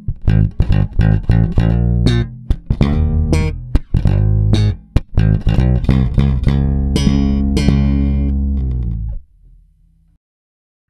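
Fender Squier Jaguar electric bass guitar playing a quick run of plucked notes with sharp attacks. It ends in a held note that rings and fades, then stops about nine seconds in.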